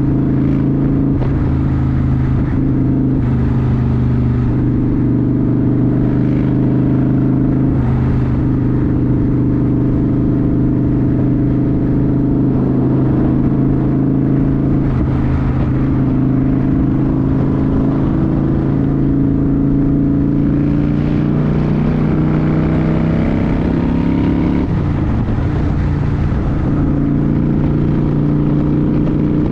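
Motorcycle engine running at a steady cruising pitch, with a brief dip and recovery in pitch about 25 seconds in, as at a gear change or a roll-off of the throttle.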